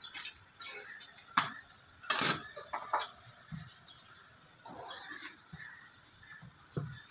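Wooden rolling pin rolling out chapati dough on a round wooden board (chakla): soft rubbing broken by scattered knocks and clacks of the pin and board, the loudest a clatter about two seconds in.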